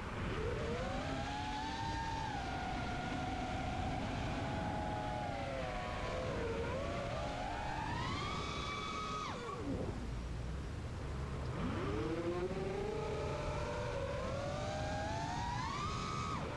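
FPV quadcopter's brushless motors and 5-inch Demon 5045 propellers whining, the pitch rising and falling with the throttle. The whine drops away sharply about nine and a half seconds in and climbs back up two seconds later, over a low rush of wind on the onboard camera's microphone.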